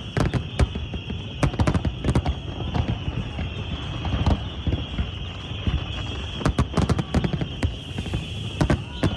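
Aerial fireworks exploding: many sharp bangs in quick, irregular succession over a steady high hiss.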